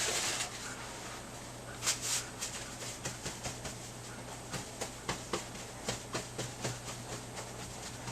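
Paper towels rustling and crinkling as spilled tea is wiped up, in many short uneven crackles and taps with two louder ones about two seconds in. A steady low electrical hum runs underneath.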